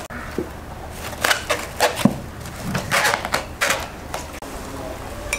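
Several short rustling, crinkling handling noises in a row, with a low steady hum underneath.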